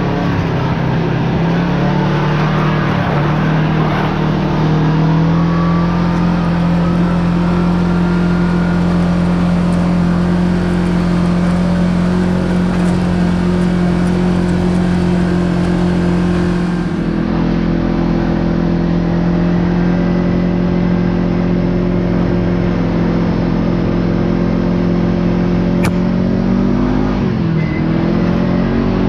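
Kawasaki Teryx KRX side-by-side engine running at a steady pace while driving, its pitch shifting about two-thirds of the way in and dropping then picking back up near the end.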